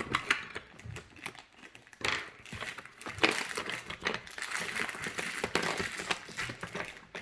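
Packaging crinkling and rustling in uneven bursts, with small clicks, as toys are handled and unwrapped.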